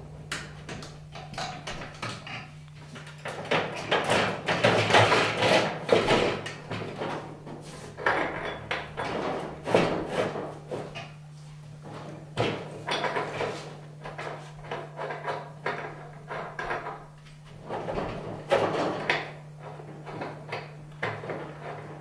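Steel gasifier barrels and their fittings being handled and joined: irregular clanks, knocks and scraping, with a steady low hum underneath.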